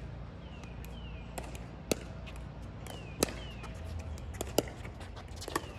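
Pickleball paddles hitting the ball during a rally: four sharp pops spaced about one to one and a half seconds apart.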